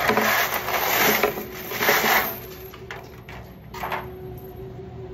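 A tub of pennies poured out onto a wooden table: a dense clattering cascade of coins for about two seconds, then a few scattered clinks as they settle.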